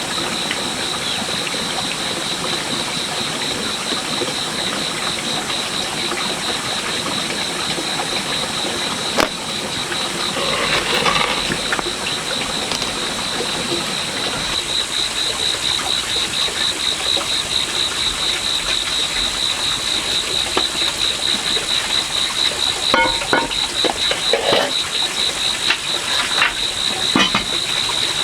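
Insects chirring in a steady, high-pitched, rapidly pulsing chorus, with a few short knocks near the end.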